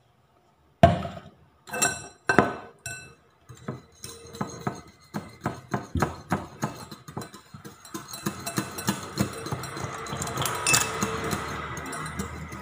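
Wire whisk beating egg yolk and milk in a ceramic bowl, the wires clinking quickly against the bowl's sides at about three strokes a second, faster and denser in the second half. A few separate loud clinks come first.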